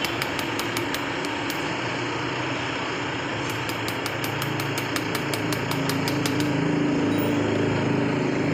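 An engine running steadily, growing louder from about five seconds in, with runs of rapid, evenly spaced light ticks.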